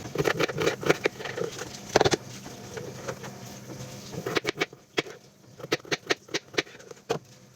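Garlic ciabatta bread being chopped by hand with a knife: a run of quick, irregular chops, then sharper single strokes spaced apart in the second half.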